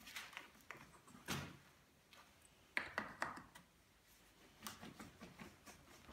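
Faint clicks, knocks and scraping of plastic and metal parts as a replacement handle-height adjustment mechanism is fitted onto a tfk Joggster stroller's handlebar frame, in several separate clusters of handling noise.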